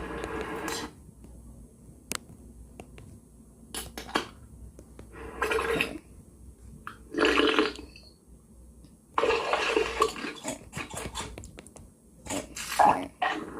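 Eating noises: about five noisy bursts of gobbling and munching, each a second or two long, with short pauses between them.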